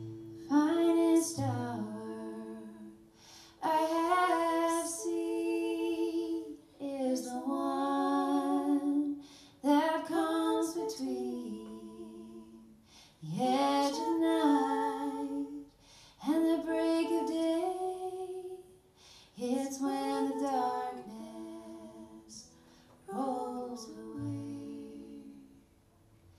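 Women's voices singing a wordless, largely unaccompanied passage, in phrases of two to three seconds with short breaths between them.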